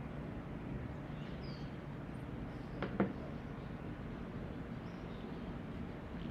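Steady low background hum, with two quick clicks close together about three seconds in.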